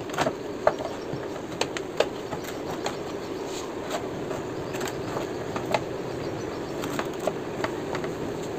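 Irregular light clicks and taps of a Yamaha YZF-R15 V2's plastic lower fairing panel being pulled and worked off its mounts by hand, over a steady background hum.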